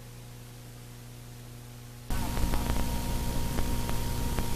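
Faint steady hum of a videotape recording with no programme sound. About two seconds in it cuts suddenly to a louder, steady hiss carrying a faint high whine and scattered light clicks.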